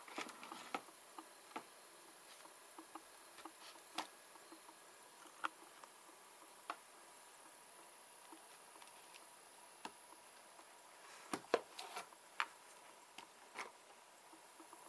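A small DC motor driving a larger 12 V DC motor as a generator runs faintly, a light steady whine with soft, evenly repeating ticks. Sharp irregular clicks and knocks come over it, most of them about eleven to twelve seconds in.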